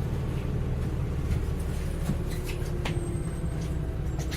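Inside a Heuliez GX317 LPG city bus: the engine and drivetrain run with a steady low rumble, with a few light clicks and rattles from the cabin.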